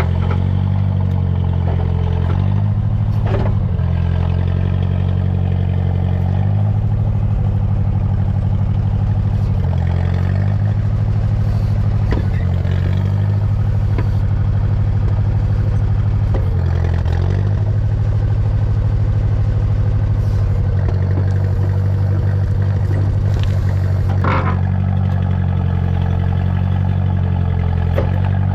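International Harvester 300 Utility backhoe's gasoline engine running steadily while digging, its note dipping slightly now and then as the hydraulics take load, with a few clanks and scrapes, the sharpest about 24 seconds in. The owner says the engine is running super rich.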